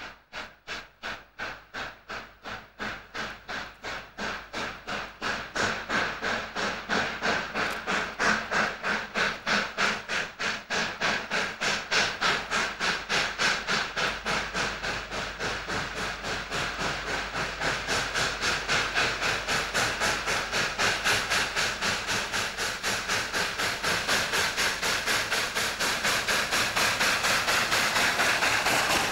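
Southern Pacific 4449, a GS-4 4-8-4 Daylight steam locomotive, working hard as it pulls its train out of the station. Its exhaust beats come in a steady, even rhythm and grow louder as the engine approaches, then hold loud with steam hiss over them.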